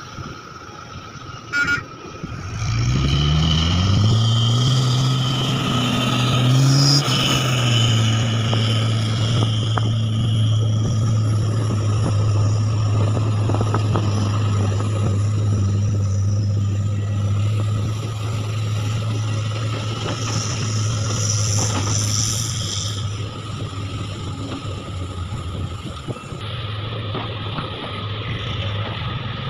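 Heavy diesel engine of earthmoving machinery revving up, rising in pitch for a few seconds, then running steadily at a constant speed. A short horn beep sounds about two seconds in.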